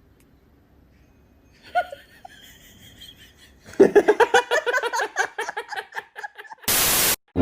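A person laughing in quick, rapid bursts for about three seconds, after near silence, followed by a short burst of loud static hiss.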